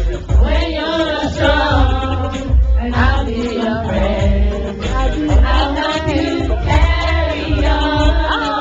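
A choir of mixed voices sings a gospel-style song over a steady low drum beat.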